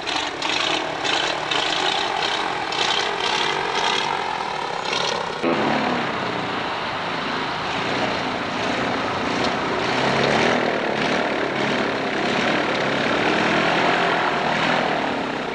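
Airboat's engine and air propeller running, a steady loud drone that changes abruptly about five and a half seconds in.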